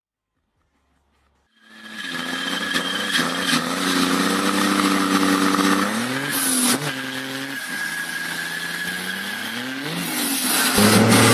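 Volvo diesel engine revving hard through a burnout, its pitch dipping and climbing twice over a hiss of tyre noise. Near the end it cuts abruptly to a different engine's steadier running.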